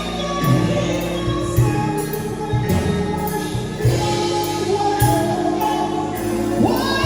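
Gospel choir singing over a band with a steady drum beat.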